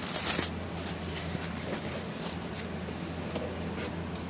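Model-ship boxes being handled: a short rustle at the start, then faint scattered clicks and taps over a steady low hum of room noise.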